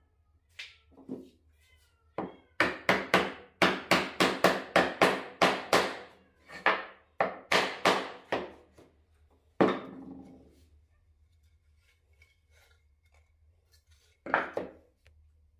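Wooden mallet tapping a plywood upright down into its slot in a plywood base: a quick run of sharp, ringing wooden knocks, a few more single knocks later on.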